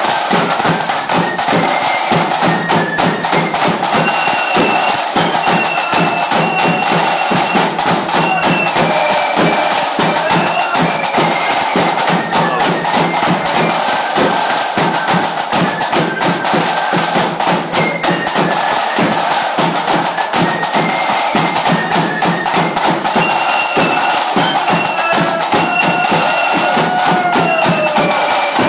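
Flute band playing a tune: flutes carrying the melody over dense side-drumming and a bass drum.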